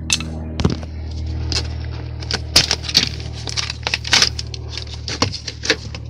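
Handling noise: scattered clicks, taps and rustles as hands and the phone camera move around the car's door sill trim and wiring, over a steady low hum.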